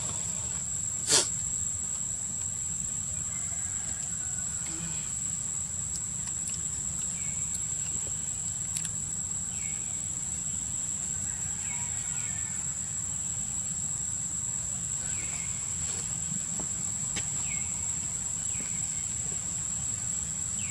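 Steady high-pitched insect drone, unbroken throughout, with a sharp click about a second in and short falling chirps every two or three seconds in the second half.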